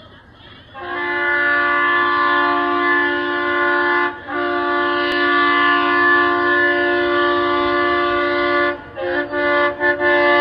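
Approaching locomotive's air horn sounding a long chord of several notes together, starting about a second in. It breaks off once briefly near the middle, then holds on again, with a few quick stutters near the end.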